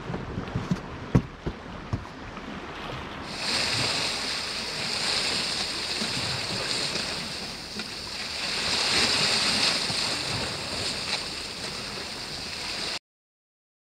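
Sea waves washing against a rocky shore with wind on the microphone, a steady hiss that grows brighter about three seconds in. A few sharp knocks come in the first two seconds, and the sound cuts off suddenly near the end.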